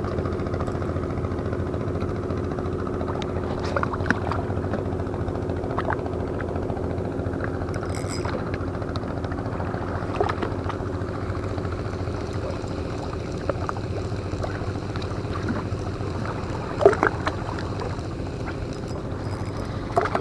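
A steady engine drone with an unchanging pitch, joined by a few faint small clicks.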